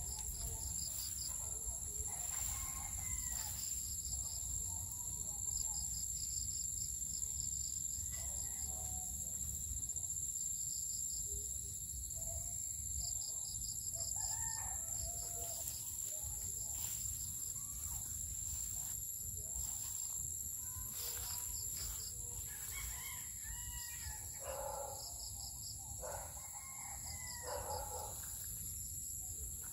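Roosters crowing several times, loudest near the end, over a steady high-pitched ringing drone.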